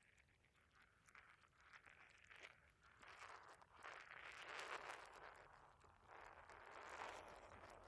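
Faint stomach gurgling after a meal, in two swells over the second half: the first from about three seconds in, the second around seven seconds.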